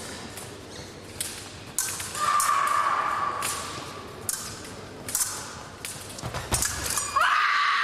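Sharp taps and clacks of épée blades and feet on the piste, and twice a steady electronic beep from a fencing scoring box: once for about a second and a half, starting about 2 s in, and again near the end.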